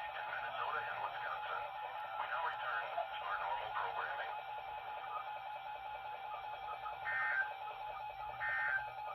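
Radio broadcast audio, voice and music, over a steady hum tone. About seven seconds in come the first two of three short, evenly spaced data bursts of an Emergency Alert System SAME header, the screech that marks the start of an alert.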